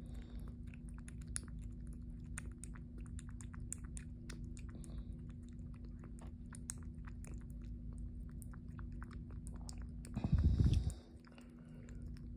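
A kitten suckling at a feeding bottle's rubber nipple: quick, irregular wet clicks and smacks from its mouth, with a brief louder rumble about ten seconds in.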